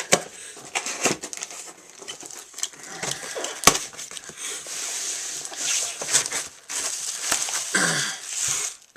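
Cardboard shipping box being opened by hand: packing tape torn and stripped, flaps and packing material rustling and scraping, with a sharp knock about four seconds in.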